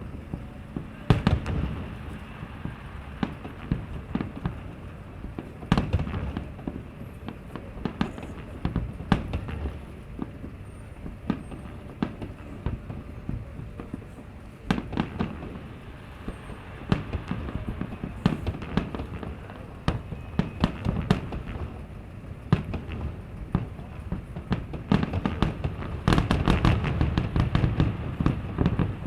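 Fireworks display: a string of sharp bangs from shells bursting overhead at irregular intervals, building to a dense, rapid volley near the end.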